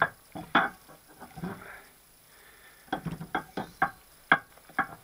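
Sharp metallic clicks and knocks at irregular intervals, a few a second with a short lull about two seconds in, as a steel hydraulic-cylinder piston is twisted and pushed by hand onto the oiled piston rod. It is a tight fit.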